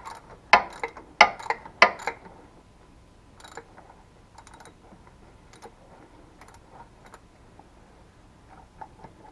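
Ratchet wrench clicking as it works a starter mounting bolt loose: a quick run of sharp clicks for about two seconds, then fainter, scattered clicks.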